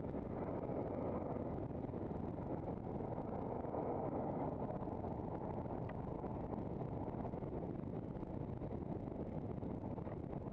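Steady rumble of wind on the microphone and road noise from a camera mounted on a handcycle riding along a tarmac road.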